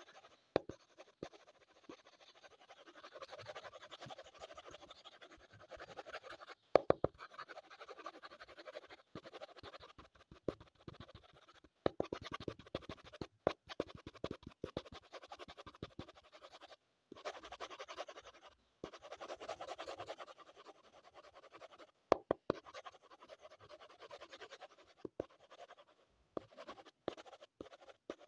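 Wooden colored pencil scratching across paper in runs of shading strokes, with scattered sharp taps a few times.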